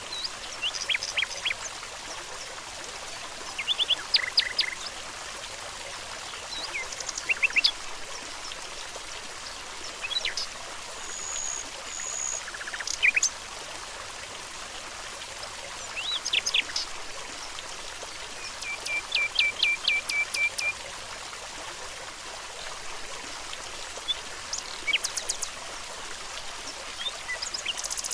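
Several small birds singing in short chirps and trills over the steady rush of running water. About two-thirds of the way in, one bird gives a run of quick, evenly spaced repeated notes.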